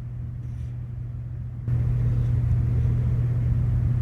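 A steady low machine hum, joined about two seconds in by a louder steady whirring noise that keeps going.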